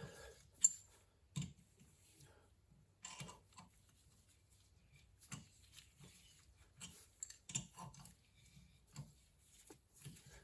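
Irregular light metal clicks and scrapes of hand-tool work on a stripped bolt hole being repaired with a helicoil.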